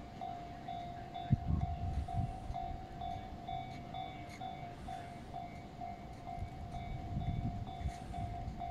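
Distant electric train approaching slowly through the station yard, with a steady high ringing tone pulsing in quick even repeats and a few low rumbles about a second in and near the end.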